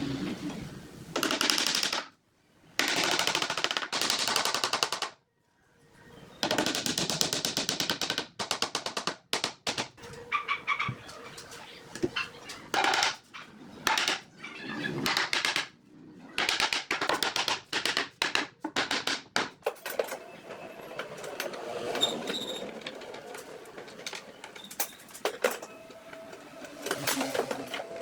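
Power tool running in many short bursts of rapid rattling clicks, stopping and starting abruptly.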